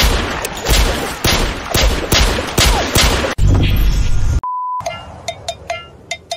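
Rapid gunfire in an action-film shootout: a dense string of sharp shots for about three seconds. Then a short steady beep, followed by a few fainter clicks.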